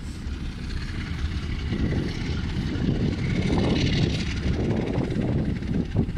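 Diesel locomotive engine working under load, a low rumble that grows louder over the first couple of seconds and then holds steady.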